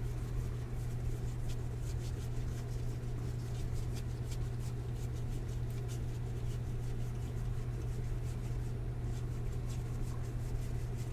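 2022 Topps Series 1 baseball cards being handled and flipped through by hand: small irregular clicks and rustles of card stock, over a steady low hum.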